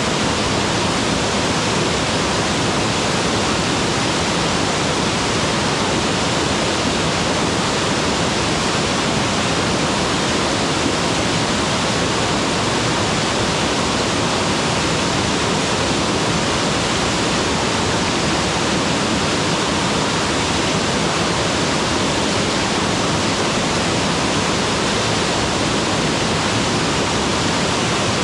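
Mountain waterfall pouring steadily, a dense, even rush of water with no other sound.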